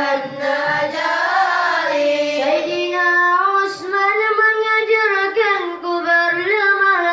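Children singing an Islamic selawat in unison, drawing out long held notes that slowly rise and fall.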